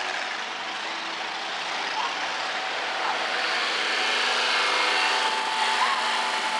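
Engines of a line of cars and pickup trucks running at low speed, a steady mix of motor noise that grows a little louder.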